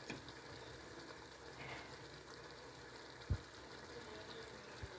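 Faint steady sizzle of masala cooking in a pan, with one soft low thump about a third of the way through and a smaller one near the end.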